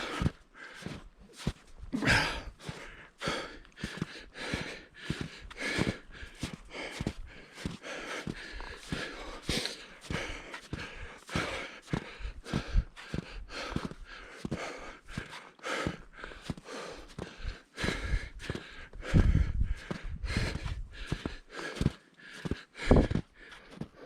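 Footsteps in snow and hard breathing from a hiker climbing, with a few louder low bumps on the microphone near the end.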